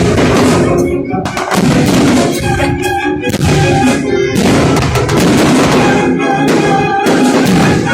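Fireworks going off in a dense, continuous barrage of bangs, with loud music playing at the same time.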